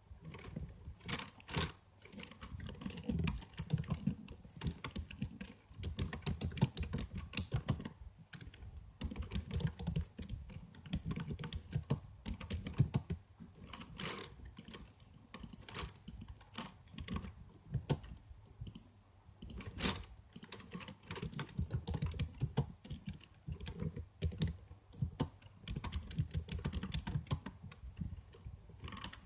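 Typing on a computer keyboard: a steady run of irregular key clicks with short pauses and a few louder strokes.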